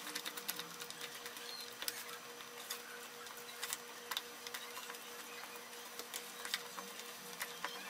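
Pork lard being beaten by hand in a plastic basin: irregular soft slaps and squelches of the hand working the creamy fat, over a faint steady hum. This is the long hand-beating that makes the lard fluffy for tamal dough.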